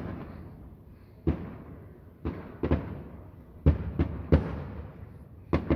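Aerial fireworks bursting overhead: about seven sharp bangs at irregular intervals, each trailing off in an echo.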